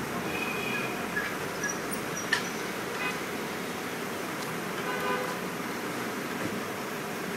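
City street traffic noise with a short car horn toot near the start. There is a sharp click a little over two seconds in.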